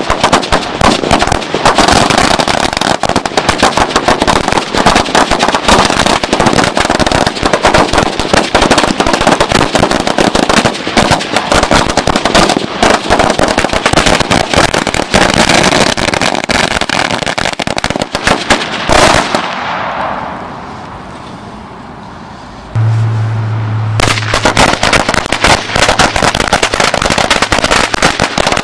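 A hanging firecracker celebration roll going off: a dense, rapid string of firecracker bangs. The bangs ease into a brief lull about two-thirds through, then start again.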